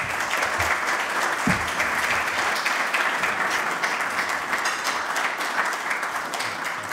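Audience applauding: a roomful of people clapping steadily, easing off a little near the end.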